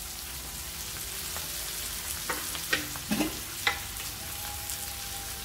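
Onion-and-spice masala with chopped green capsicum sizzling in oil in a nonstick pan, stirred with a wooden spatula. A few sharp taps of the spatula against the pan come around the middle.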